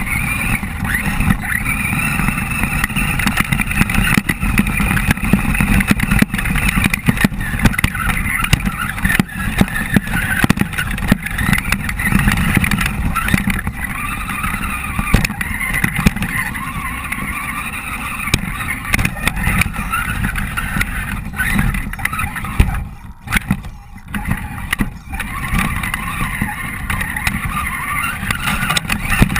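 Axial SCX10 electric RC crawler driving over gravel and small rocks, heard from a camera mounted on its body: a whine from the electric motor and geared drivetrain that rises and falls with the throttle, over a heavy low rumble and rattling knocks as the chassis jolts over the ground. Near the end the sound drops away briefly twice.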